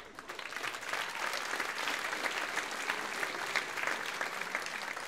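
Theatre audience applauding, a dense patter of many hands clapping that starts suddenly, builds over about a second and then holds steady.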